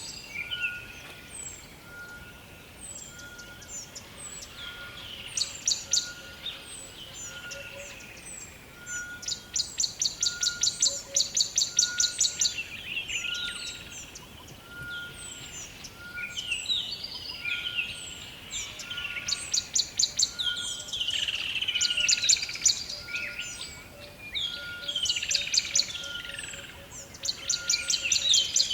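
Rainforest bird chorus: several birds calling over one another. There are bouts of very rapid high trills, many quick falling chirps, and a short steady note repeating about once a second throughout.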